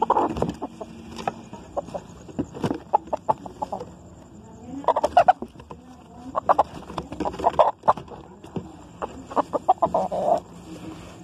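White rooster clucking in rapid bursts, about four times, as it is grabbed and handled, with feathers rustling and small knocks between the calls.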